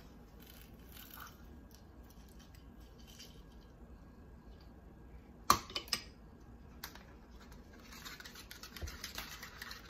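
Faint handling of a plastic hand-held lemon squeezer over a plastic bowl. There is one sharp click about halfway through, two lighter clicks after it, and soft scraping and rustling in the last two seconds.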